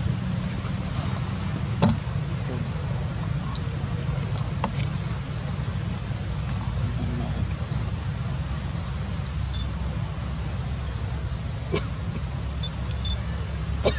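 Insect chorus outdoors: a steady high buzz that swells and fades about once a second, over a low rumble, with a few sharp clicks, the loudest about two seconds in.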